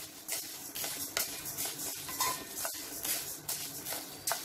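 Wooden spatula stirring split urad dal as it roasts in a kadai, the grains scraping and rattling against the pan in quick strokes about twice a second.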